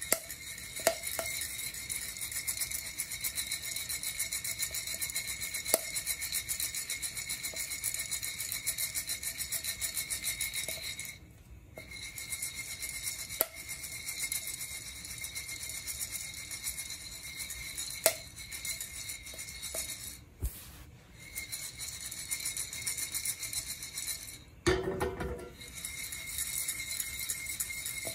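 Coffee beans rattling inside a Nuvo ceramic hand roaster as it is shaken back and forth in a quick, steady rhythm. There are brief pauses about 11 and 20 seconds in, and a short, heavier knock about 25 seconds in.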